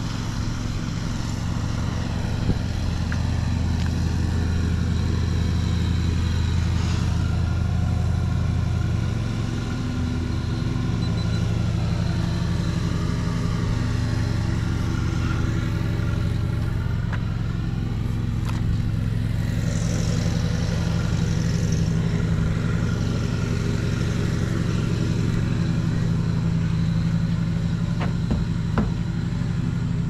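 A steady low motor drone, with a higher tone that dips and rises in pitch about halfway through.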